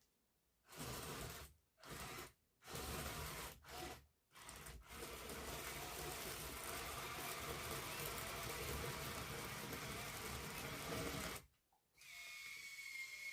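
Small electric motors and gearboxes of a 1:50 scale RC excavator or loader whirring in several short stop-start bursts, then running continuously for about seven seconds. After a brief pause near the end, a higher-pitched motor whine starts.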